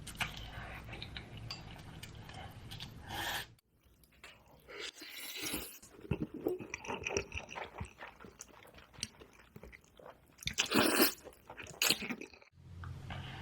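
Close-miked mouth sounds of eating: irregular chewing, biting and crunching of food, with a short silent gap about a third of the way in.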